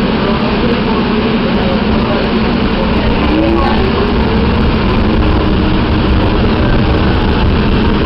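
Staten Island Railway train running, heard inside the car: a steady rumble of wheels and motors, with a motor whine that rises in pitch about three and a half seconds in as the train gathers speed leaving a station.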